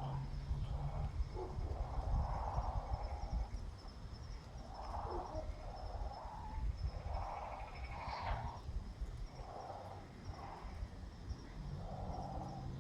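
A string of short, raspy calls from nestling birds, about one a second, over a steady high insect trill and a low background rumble.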